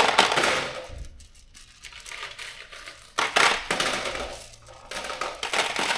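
Small metal bolts clattering and rattling as they are tipped into a storage container of a bolt kit, in three spells of rattling with short pauses between.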